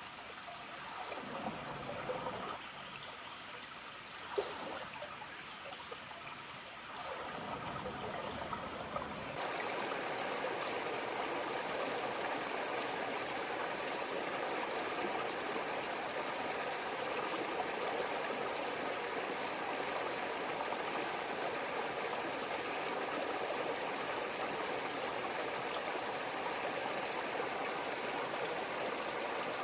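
Creek water flowing and trickling in a steady rush. About nine seconds in it changes abruptly to a louder, more even rush.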